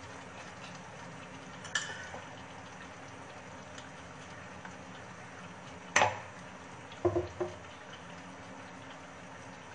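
Chicken korma cooking in a pan with a steady low hiss. Utensils knock sharply against the pan: once about two seconds in, loudest about six seconds in, then twice more soon after.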